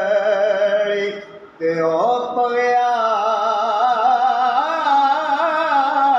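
Background music: a male voice singing long, wavering held notes. It breaks off briefly about a second and a half in, then slides up into another long held note.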